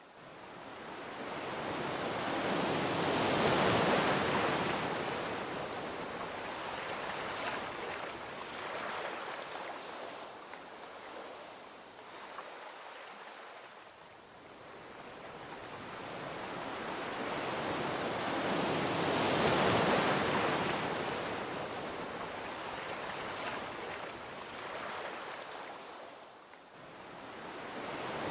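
Gentle ocean waves washing onto a beach. Two slow swells of surf each build for several seconds and fade, and a third begins to build near the end.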